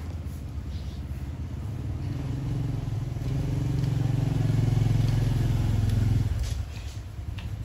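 A motor vehicle's engine running nearby. It grows louder over a few seconds, then drops off sharply about six seconds in.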